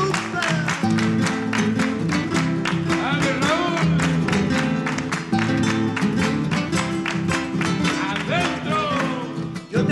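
Instrumental interlude of a chacarera: acoustic guitars strummed and picked in a driving rhythm, with a bombo legüero drum keeping the beat. The music drops out briefly near the end.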